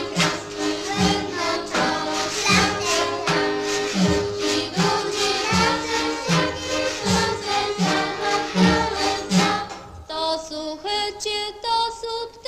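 A children's choir singing a Kashubian folk song over instrumental accompaniment with a steady low beat about twice a second. About ten seconds in the low beat drops out and the higher voices carry on.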